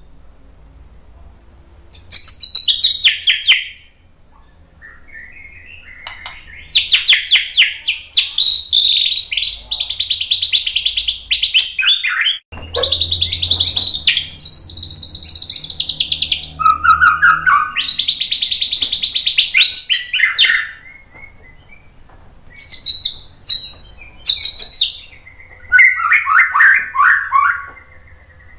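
White-rumped shama (murai batu) singing in loud phrases: strings of rapidly repeated notes and fast high trills, broken by short pauses. A faint low hum runs underneath.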